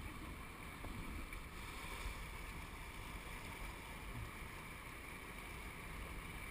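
Steady rush of river water around an inflatable raft drifting through a riffle, with a low rumble of wind on the microphone.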